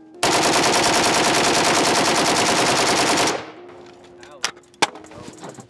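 Pioneer Arms 5.56 AK rifle firing one continuous full-auto burst of about 30 rounds in roughly three seconds, evenly spaced at about ten shots a second, then stopping. The rifle is being run hot in a meltdown test, some 1,450 rounds in.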